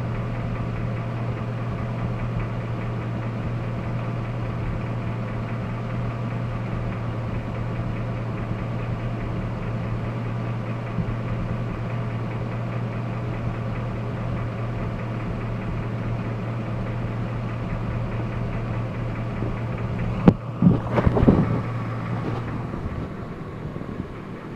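Jasper remanufactured 5.3-litre V8 idling steadily, carrying an unidentified noise that the owner is trying to track down. About 20 seconds in come a few loud thumps, and the engine's steady hum stops a couple of seconds later.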